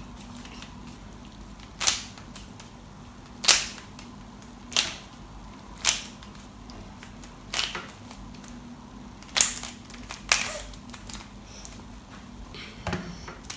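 Rubik's cube being scrambled by hand: its layers turn with sharp plastic clacks, about eight of them, irregularly one to two seconds apart.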